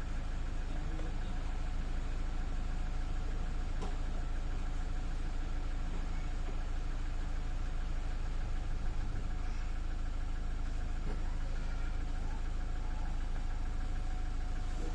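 Toyota Hilux's 1GD 2.8-litre four-cylinder turbodiesel idling steadily.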